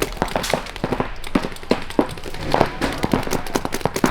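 Air-powered game guns firing rapid, irregular pops in overlapping strings of shots, many a second.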